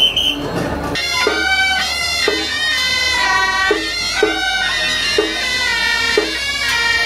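Suona (Chinese reed horn) processional music: a reedy, wavering melody of changing notes that comes in about a second in.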